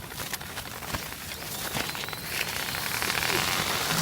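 Toilet paper unrolling fast off a paint roller as a remote-control truck pulls it away: a steady hiss with many small irregular ticks and crackles.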